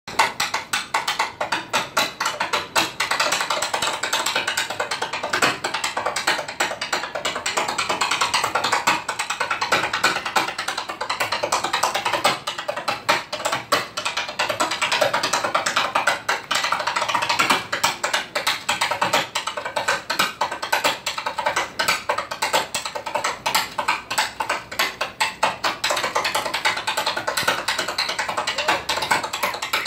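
Tap dancing: metal-tipped tap shoes striking a stage floor in a fast, dense rhythm of many clicks a second that keeps going throughout.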